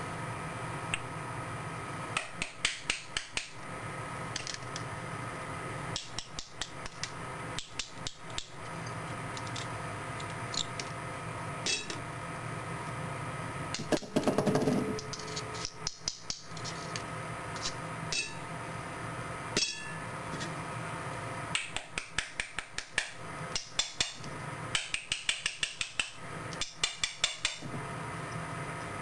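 A claw hammer taps a ceramic Pentium CPU held in the hand, in quick runs of sharp, light knocks with short pauses between runs. About halfway through there is a louder clatter with a brief ring.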